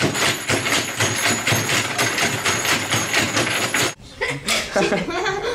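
Hand-shaken plywood shake table rattling and knocking against the boards and boxes beneath it, a fast, even clatter of several knocks a second, which is the 'earthquake' test of a stir-stick tower. It cuts off suddenly about four seconds in, and voices follow.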